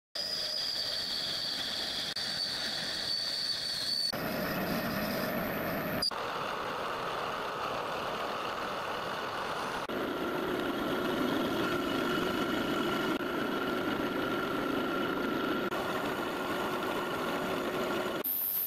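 Harrison metal lathe running and turning steel workpieces, chiefly a steel axle being turned down. The sound changes abruptly a few times between clips, and a thin high whine runs through the first few seconds.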